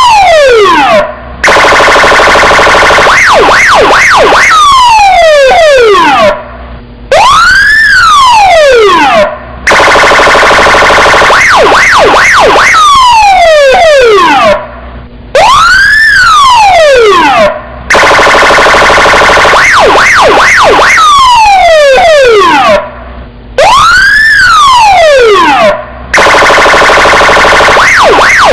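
Police car electronic siren cycling through its tones: a long rising-then-falling wail, then a harsh buzzing horn blast with quick yelps over it, then falling whoops. The cycle repeats about every eight seconds, with short breaks between segments.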